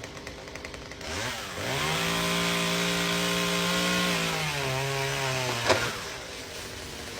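An engine revs up over about a second, holds a steady high pitch for a couple of seconds, then drops to a lower pitch and winds down. There is one sharp crack near the end.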